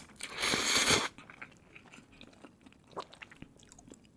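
A person eating spicy instant noodles close to the microphone: a loud slurp lasting under a second near the start, then soft, wet chewing.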